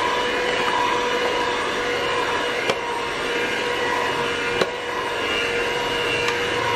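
Electric hand mixer with dough hooks running steadily, a constant motor whine, as it kneads stiff donut dough in a plastic bowl. A sharp click comes twice near the middle.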